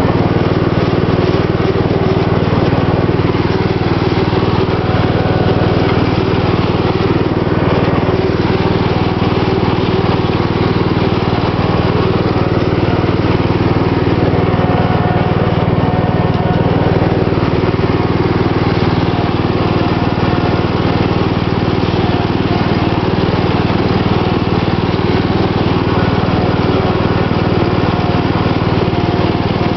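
Riding lawn mower's engine running steadily as it is driven across the grass.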